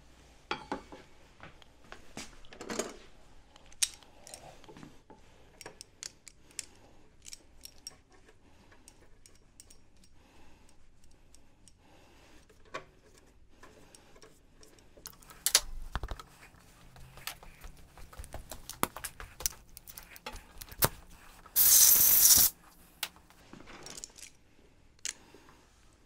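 Metal clinks, taps and rattles of brake pads, pins and hand tools being handled at a scooter's front disc brake caliper, with a heavier knock a little past halfway. About two-thirds of the way through, a loud rushing noise lasts about a second.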